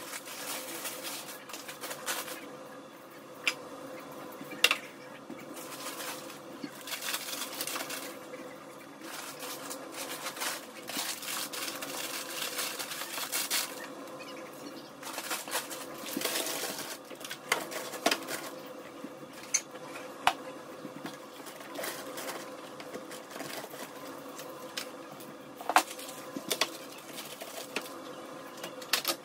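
Plastic food packaging crinkling in bursts as snack bags and packages are handled, with a few sharp knocks of items being set down. A faint steady hum runs underneath.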